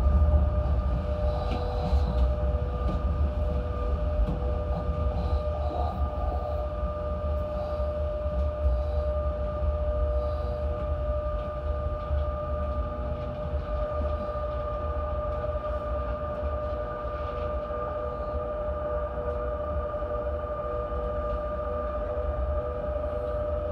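Electric train running along the track, heard from the cab: a steady low rumble with a steady whine of several held tones over it.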